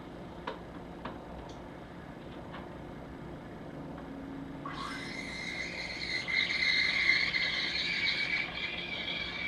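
A few light clicks, then about five seconds in a milk steamer starts frothing milk with a loud, high-pitched screech that rises quickly and then holds steady.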